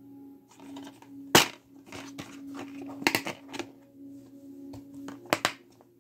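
Plastic DVD keep case being handled and snapped open, the disc unclipped from its hub: sharp plastic clicks and snaps, one loud snap about a second and a half in, a cluster around three seconds and a double snap near the end. A steady low hum runs underneath.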